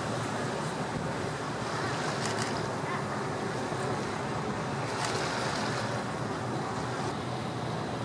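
Steady wind buffeting the microphone over open water, with the wash of water around a boat. Brief hissing rushes stand out about two seconds and about five seconds in.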